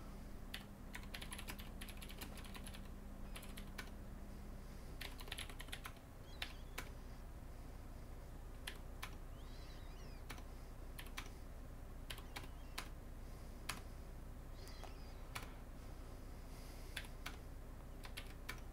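Computer keyboard being typed on: scattered single key clicks and short runs of keystrokes.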